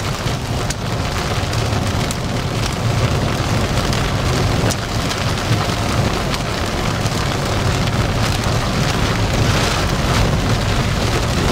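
Rain and wind from a severe thunderstorm beating on a vehicle: a loud, steady rushing hiss over a deep rumble, with a couple of sharp taps.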